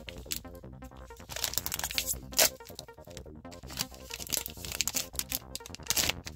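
A card game booster pack's foil wrapper crinkling and being torn open by hand, with a loud crackle about two and a half seconds in, over background music.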